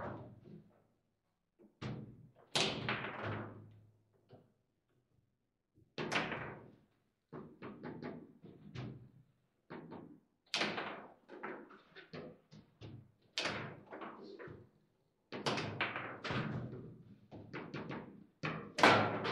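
Foosball in play: the ball and rods striking the plastic players and the table's walls in sharp, irregular knocks, each with a short ringing decay, with a pause of about two seconds near the start.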